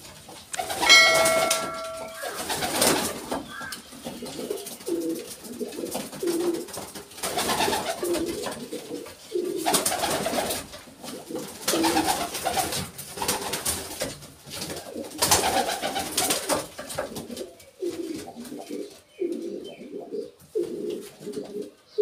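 Irani tumbler pigeons cooing over and over in short, low phrases, with several loud bursts of wing flapping. A short chime rings about a second in.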